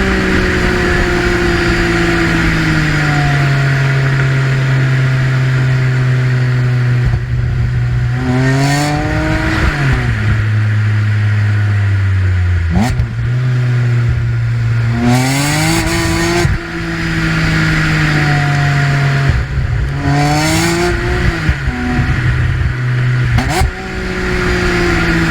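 E46 BMW M3's straight-six engine running loud, its revs rising and falling several times between longer steady stretches, with sharp breaks in the note.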